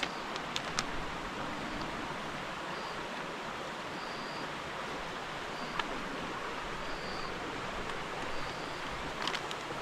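Steady rushing outdoor background noise, with a few light clicks and faint short high chirps recurring every second or so.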